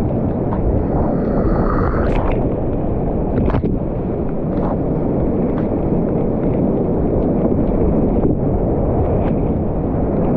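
Loud, steady rush of whitewater rapids on a high-water creek, heard from a kayak in the middle of them, with a few brief sharp knocks.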